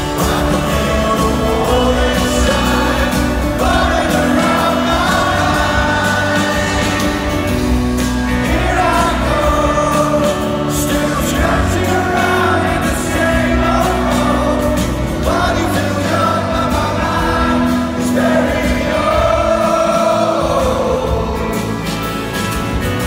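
Live band playing a song with a sung vocal melody over guitar and bass.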